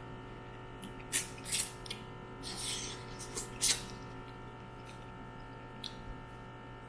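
A person eating steamed mud crab: a handful of short crackles and mouth noises, clustered in the first half, over a steady low hum.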